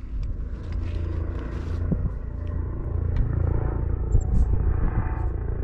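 Uneven low rumble of wind buffeting the microphone, with a few small clicks from handling tackle.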